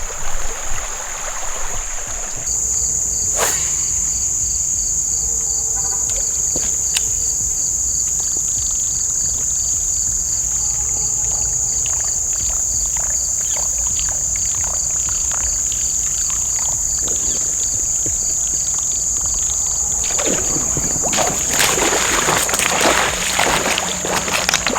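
Insects shrilling in a steady, high-pitched chorus, with a second insect giving evenly pulsed chirps. Scattered small clicks run through it, and water splashing starts near the end.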